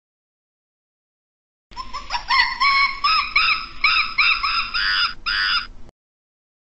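A primate's high-pitched calls: a fast series of rising-and-falling cries, about three a second, starting about two seconds in and stopping abruptly.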